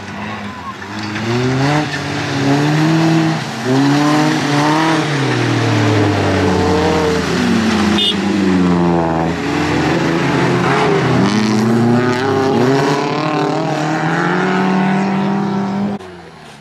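Off-road rally 4x4 engines revving hard under load, pitch climbing and dropping again every couple of seconds as the drivers change gear and lift off over rough ground.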